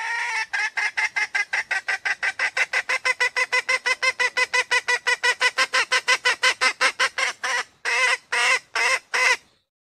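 Female red junglefowl calling: a drawn-out opening note, then a long even run of short clucks, about five a second, that breaks into four longer, wavering notes near the end.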